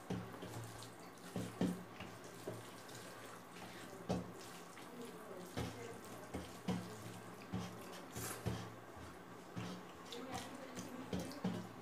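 Eating sounds: fingers mixing and squeezing rice on a metal plate, with wet chewing and scattered soft clicks at irregular intervals.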